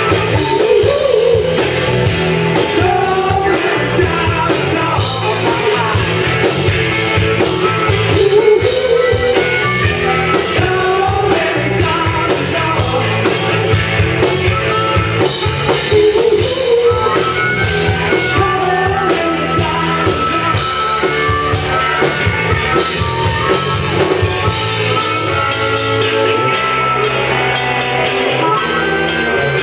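Rock band playing live: electric guitars, bass, drums and piano, with a man singing over them.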